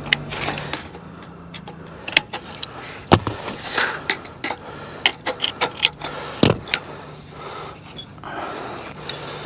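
Handling of a piece of sheet-metal drip edge and tin snips: scattered light clicks and ticks, with a quick run of ticks and then a heavier knock about six and a half seconds in.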